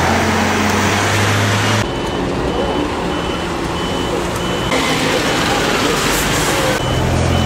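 Idling heavy-vehicle engine with a steady rush of road noise, and a short high warning beep repeating about twice a second. The engine hum is strongest at the start and again near the end, and the sound changes abruptly about two seconds in.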